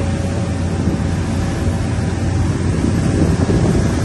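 Boat engine running with a steady low hum, and wind buffeting the microphone.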